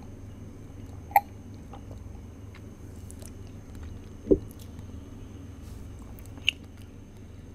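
Steady low background hum with a faint high whine, broken by three short sharp sounds: one about a second in, a lower one about four seconds in, and one near the end.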